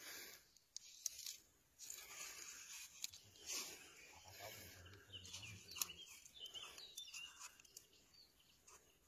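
Near silence with faint scratching and crinkling: a paint marker writing on the plastic film wrapped over a ballistic panel.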